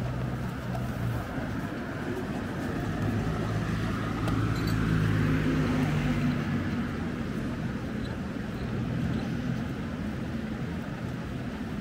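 City street ambience with a motor vehicle passing. Its engine hum and tyre noise swell to the loudest point about halfway and then fade.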